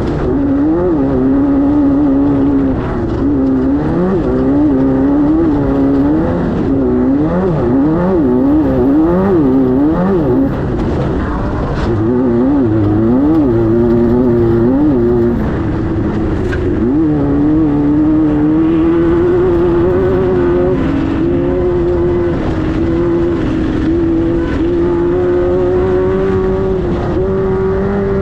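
Air-cooled 1600 cc VW flat-four of a Class 5-1600 off-road race car, working hard. For the first half its pitch swings rapidly up and down as the throttle is worked. It then holds at a steadier, slowly climbing pitch under sustained throttle.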